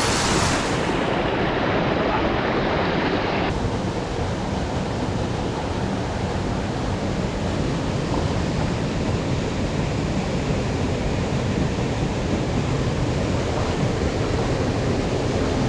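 Mountain stream water rushing steadily, an even wash of noise with no breaks.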